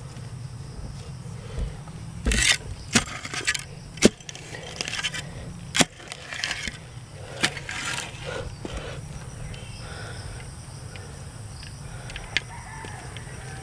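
Digging in loose, rooty soil by hand: a run of sharp knocks and scratchy scrapes of dirt being broken up and pushed aside, mostly in the first half, over a steady low rumble.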